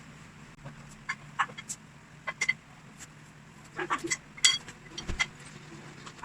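Scattered light clicks and clinks of objects being handled, irregular and sharp, one ringing briefly about four and a half seconds in, over a low steady hum.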